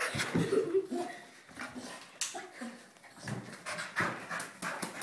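A dog panting in quick breaths during play, with a few light knocks.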